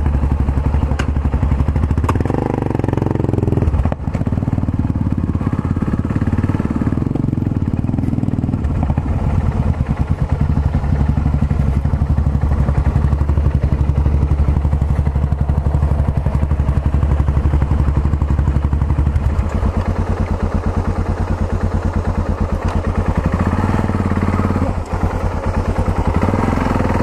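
Yamaha XT 660Z Ténéré's single-cylinder engine running steadily under way. Its note shifts with the throttle a few seconds in and changes again about two-thirds of the way through.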